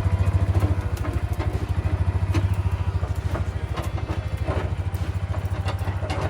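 Small engine running steadily and loudly, with a fast, even beat.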